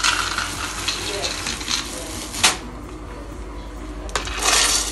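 Dry shelled peanuts poured from a measuring cup into a glass blender jar, making a rattling rush at the start and again near the end. A single sharp click comes about halfway through.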